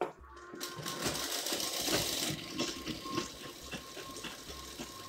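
Motor-driven sewing machine running a line of stitches: a fast, even clatter of the needle mechanism over the whir of the motor, busiest about a second in and easing somewhat after the middle.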